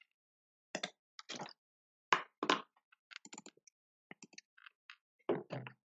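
Irregular clicks and light knocks from a computer mouse and keyboard. The louder ones come about two seconds in and near the end, with a run of small quick ticks in between.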